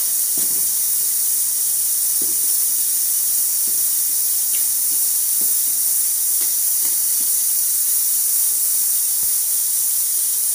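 A steady high-pitched hiss, constant and also present under the speech around it, like background recording noise. Faint, scattered soft rubs and taps sound beneath it as hands work flour and oil together in a steel bowl.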